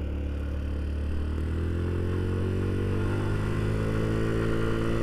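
1985 Honda Elite 150 Deluxe scooter's single-cylinder four-stroke engine pulling under throttle, its pitch rising slowly and steadily as the scooter gathers speed.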